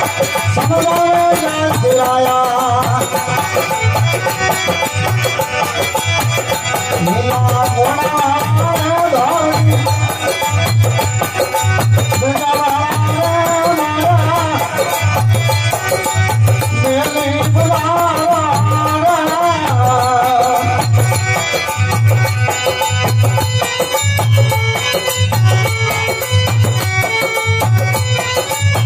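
Rajasthani folk devotional bhajan music: a melody that bends up and down in pitch over a steady low drum beat about once a second, with quick high percussion. The melody fades back after about two-thirds of the way through, leaving mostly the beat.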